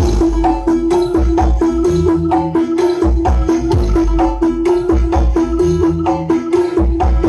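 Loud music with deep bass beats, busy percussion and a held note, played through a large truck-mounted carnival sound system during a sound check.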